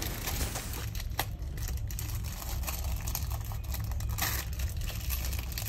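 Faint rustling and small clicks from laptop parts being handled by hand, with one sharper click about a second in, over a steady low hum.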